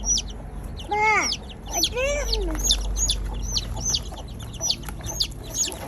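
Hens clucking, with two longer rising-and-falling calls about a second and two seconds in, over a quick, steady run of short high chirps.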